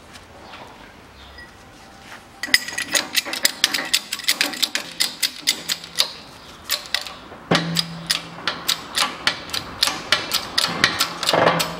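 A shop press forcing a new front wheel hub bearing into a Toyota Caldina steering knuckle, with the old bearing used as the driver. After about two seconds of quiet comes a dense run of sharp metallic clicks and creaks, several a second, as the bearing is pushed into its seat. The clicks pause briefly past the middle, then go on with a steady low hum underneath.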